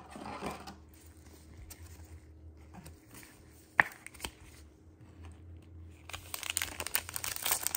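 Foil wrapper of a trading-card pack crinkling as it is handled, starting about six seconds in. Before that, soft card-handling rustles and one sharp click near the middle.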